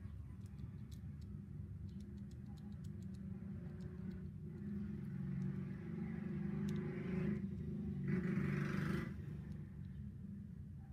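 A steady low background rumble swells from about the middle and is loudest just before the end, then falls away. Over it come a few faint light clicks as a plastic articulated figure's joints are moved.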